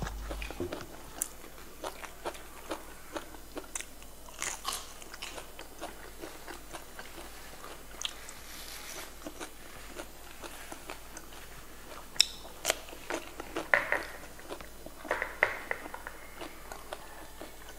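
Close-miked crunching and chewing of raw green vegetables: irregular crisp bites and mouth sounds, coming thicker in the second half.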